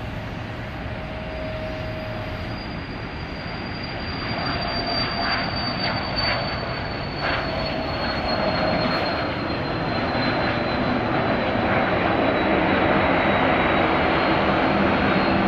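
Embraer Phenom business jet's twin turbofan engines at takeoff power through the takeoff roll and lift-off. A jet roar grows steadily louder, with a high whine that slowly falls in pitch.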